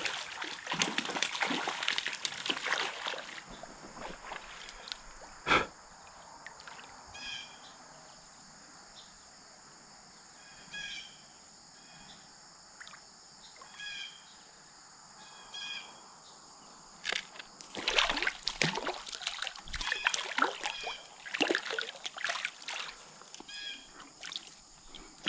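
Creek water splashing in bouts, in the first few seconds and again through the last third, as a hooked trout thrashes and is brought in on a tenkara line; a single sharp knock comes between the bouts. A steady high insect drone and a short call repeating every couple of seconds sit underneath.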